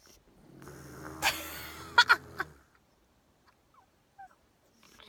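Snoring: one long drawn breath, about two seconds, with a low droning tone and a couple of sharp click-like sounds near its end, then a pause before the next snoring breath starts near the end.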